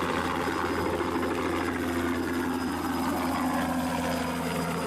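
Helicopter sound effect: a steady engine and rotor drone over a low hum.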